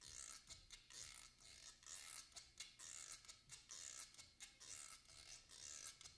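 Graphite pencil scratching on paper in quick, irregular strokes, faint.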